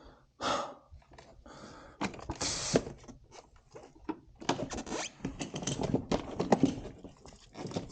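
Hand work in a car's engine bay while the battery is taken out: irregular clicks and knocks of tools and parts, with a brief scrape about two and a half seconds in, the clicks coming thick and fast in the second half.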